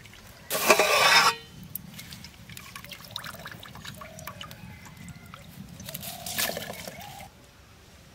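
Water poured into an aluminium pot, a brief loud splash about half a second in, followed by light metal clinks of the pot and lid and a second, softer rush of water near the end.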